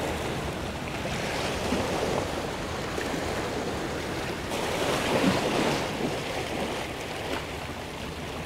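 Small sea waves washing against shore rocks: a steady wash of surf that swells a little about five seconds in, with some wind on the microphone.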